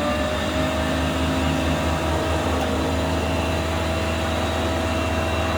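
POALONI S515 thickness planer running steadily at full speed, with a constant low hum under a steady whine.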